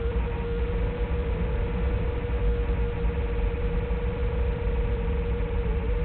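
Small FPV quadcopter's motors giving a steady whine, with gusty wind rumbling over the drone's microphone.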